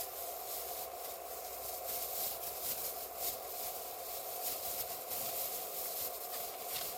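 Wood campfire crackling with frequent small sharp pops over a steady hiss.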